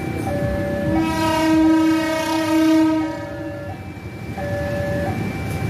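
A railway locomotive horn sounds one long blast of about two and a half seconds, starting about a second in. Before and after it, a level-crossing warning alarm plays an alternating two-note signal: the crossing is closed for an approaching train.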